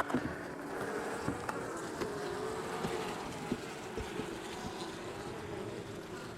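Honeybee colony humming as the hive is opened, a steady hum that wavers slightly in pitch, with a few sharp clicks and knocks from handling the hive parts.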